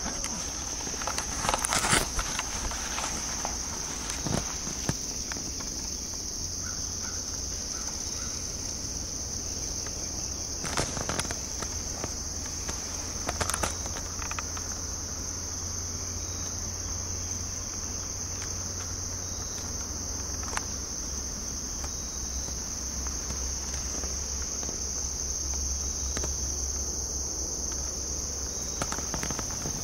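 Steady, high-pitched chorus of insects, with a few brief rustles and knocks in the first half.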